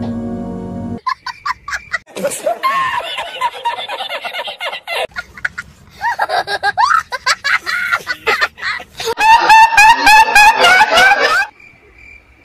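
A second of music, then about ten seconds of loud, high-pitched laughing and giggling, quick and pulsing toward the end, that cuts off suddenly near the end.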